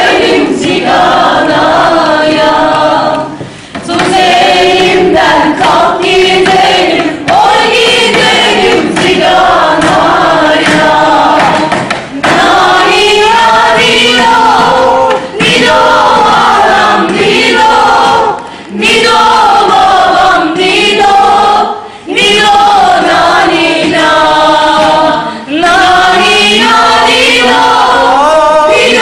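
A group of voices singing a folk song together in chorus, phrase after phrase, with short breaks between phrases.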